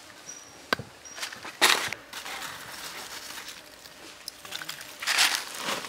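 Kitchen knife handled on a wooden chopping block: a sharp tap under a second in, then a loud short scrape about a second and a half in and another scrape near the end. Faint high chirps sound early on.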